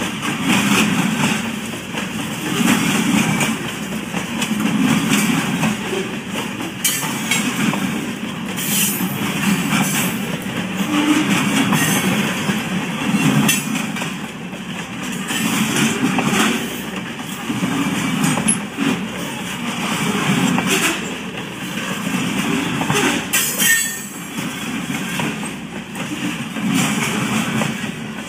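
Loaded covered grain hopper cars rolling past at close range: steel wheels running on the rails in a steady clatter that swells and fades about every two seconds as each car goes by.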